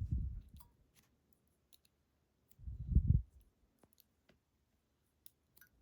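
Small, sparse metallic clicks and two dull, low knocks, one at the start and one about three seconds in, from handling the parts of a pin tumbler lock as it is gutted.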